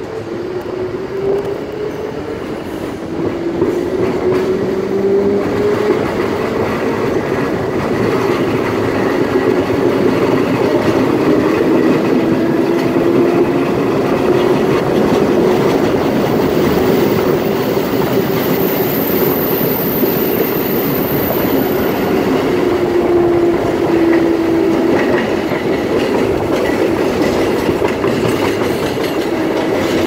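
CBTU Série 900 electric multiple-unit train running on the track, heard from inside the car. It gets louder over the first few seconds, with motor tones rising in pitch as the train gathers speed, then runs on at a steady level.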